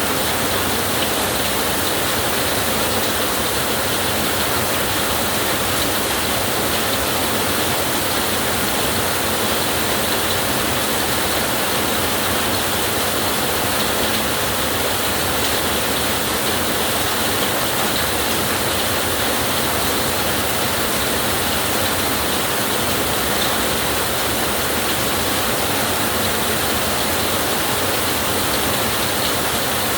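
Steady heavy rainfall, an even, unbroken hiss of water with no thunder rolls or separate drops standing out.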